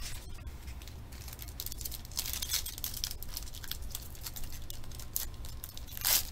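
Trading-card packs and cards being handled: foil and plastic wrappers crinkling with many small crackles, and one short louder crinkle about six seconds in.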